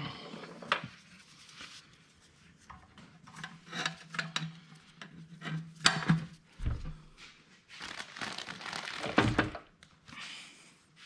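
A small engine's fuel tank and metal mounting bracket being pushed into place by hand: scattered light knocks, clicks and rubbing, with a longer rustle about eight seconds in.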